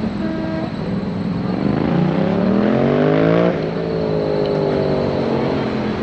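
A vehicle engine accelerating, rising in pitch for about two seconds, then dropping sharply about halfway through and falling slowly as it goes away, like a car passing by on the street.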